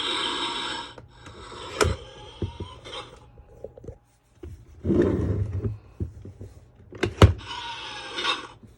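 Electronic sound effects from a toy Iron Man helmet's small speaker, with plastic clicks and thunks from the helmet being handled in between. A sharp thunk comes about seven seconds in, followed by another short burst of the sound effect.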